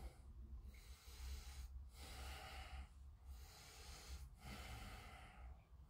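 Near silence with faint breathing close to the microphone: several breaths in and out, each about a second long, over a low steady hum.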